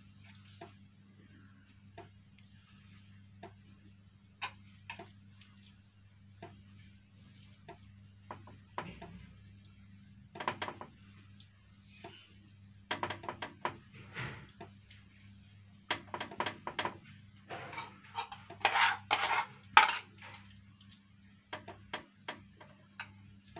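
Metal spoon clinking and scraping against a metal serving dish as meat sauce is scooped out and spread over pasta. Scattered clicks at first, growing busier, with the loudest flurry of clinks near the end.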